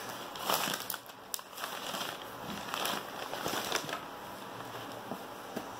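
Soft rustling and crinkling of craft items being handled and rummaged through, with a few light clicks and taps scattered through.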